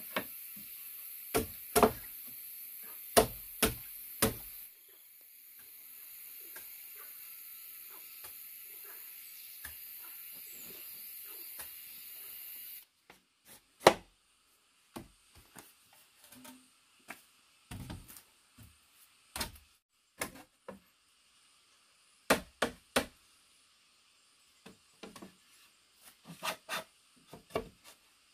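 Wood being struck with a hand tool: sharp knocks at irregular intervals, some in quick runs of two or three.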